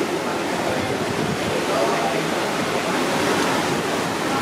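A steady hubbub of many people talking at once, with no single voice standing out.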